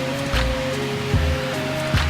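Background music: sustained notes over a low beat that pulses about every 0.8 seconds.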